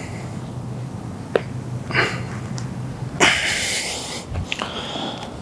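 A person breathing hard while stretching, with a short sharp breath about two seconds in and a louder, longer breath about three seconds in. A low steady hum runs under the first three seconds and stops abruptly, and there is one small click.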